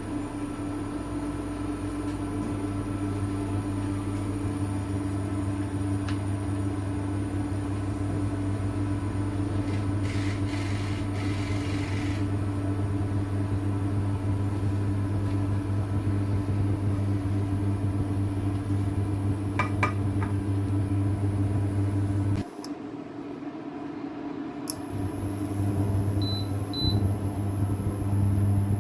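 SilverCrest SIKP 2200 A1 induction hob running with a steady hum. About three quarters of the way through the hum cuts off with a click, stays off for about two seconds, then comes back on. Two short high blips sound near the end.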